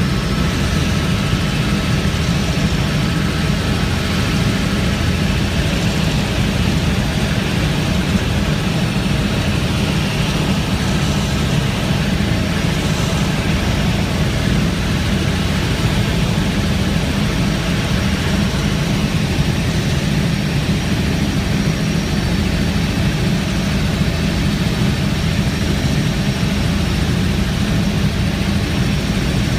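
Helicopter's engine and rotor running steadily, heard from inside the cabin in flight: a loud, unbroken drone.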